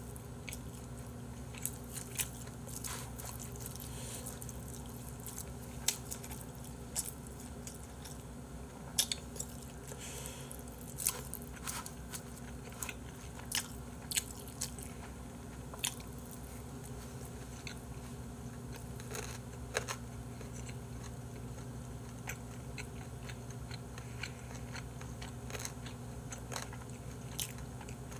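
Close-up eating sounds: a person chewing boiled pork with chopsticks, with scattered short wet clicks and smacks through the whole stretch, over a steady low hum.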